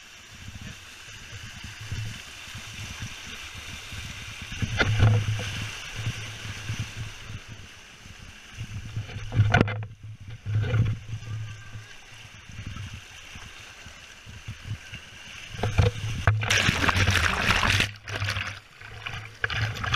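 Water rushing and splashing around an action camera riding down a pool water slide, with several sharp knocks along the way. The loudest part is a long splash near the end as the camera plunges into the water.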